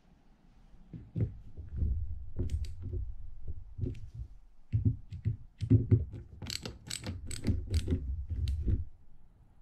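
Small screwdriver clicking and scraping against the metal side plate and small parts of a Penn International II 50T fishing reel: a run of irregular metallic taps and scrapes, thickest and sharpest in the second half.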